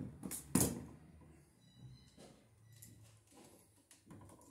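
Hand tools clattering on a plywood floor as a screwdriver is picked up from among them: one sharp clack about half a second in, followed by a few faint clicks and scrapes.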